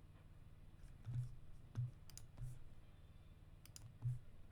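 Faint clicks and soft knocks at a computer, a few scattered clicks over a steady low hum.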